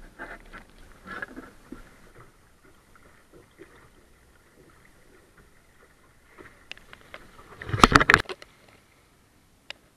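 Sailing kayak moving through choppy water: light splashing and rustling at the hull, then a loud burst of clattering knocks and splashing about eight seconds in, and a single click near the end.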